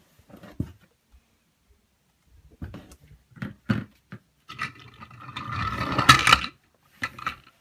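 Scattered light knocks and scrapes of a cat playing with a toy monkey among toys, with a longer, louder scraping rustle about five to six and a half seconds in.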